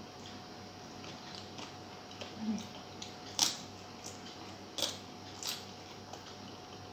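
Close-miked chewing of a mouthful of rice and fried bitter gourd eaten by hand, with short sharp mouth smacks, three louder ones in the second half.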